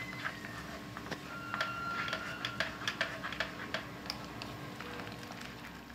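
Wooden spatula stirring thick spinach purée in a nonstick pan: irregular small clicks and taps, several a second, over a faint steady hum.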